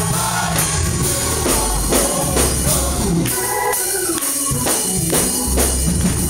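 Male gospel chorus singing with a lead soloist, backed by drums and a deep bass line on a steady beat.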